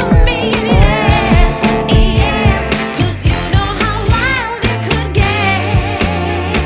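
Background music: a song with a vocalist singing wavering, ornamented lines over a steady beat and bass.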